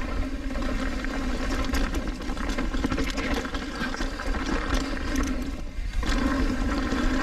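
Mountain bike rolling down a rough trail: steady rumble of tyres and wind on the camera, with many small rattles and clicks from the bike over the ground.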